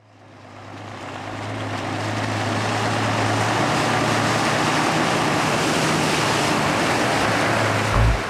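Heavy diesel tipper truck running at a steady engine hum, its tyres churning and splashing through muddy puddles. The sound fades in over the first few seconds. A music beat comes in near the end.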